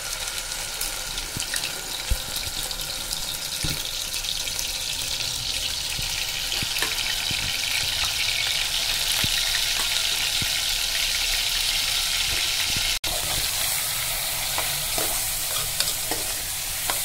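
Pounded green-chilli meat sizzling as it fries in hot oil in an aluminium pressure cooker. The sound breaks off for an instant about thirteen seconds in, then a spoon scrapes and stirs the meat through the oil.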